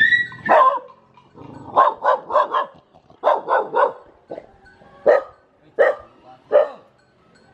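A dog barking: a falling call at the start, then two quick runs of about four barks, then three single barks spaced out.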